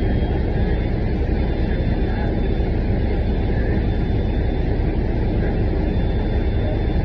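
City transit bus heard from inside the cabin: a steady low rumble of engine and road noise.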